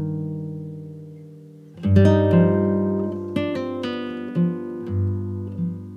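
Background music on acoustic guitar: plucked chords left to ring and fade, with a loud new strum about two seconds in and further plucked notes after it.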